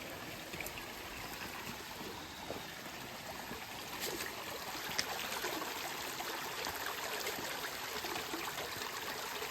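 Mountain stream running, a steady rush of water, getting a little louder about halfway through, with a few faint knocks.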